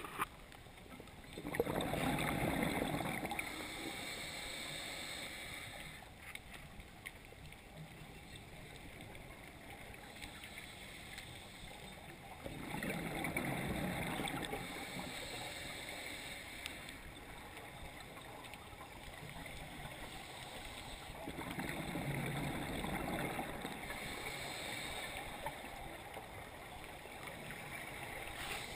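Scuba regulator exhaust heard underwater: three long rushes of exhaled bubbles, about ten seconds apart, with a quieter hiss between breaths.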